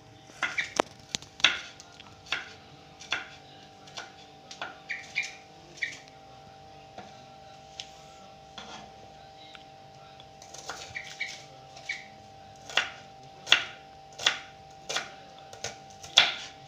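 Kitchen knife chopping garlic cloves on a wooden cutting board: sharp, irregular knocks of the blade on the wood. The knocks are sparse through the middle, then come as a run of louder chops, a little more than one a second, near the end.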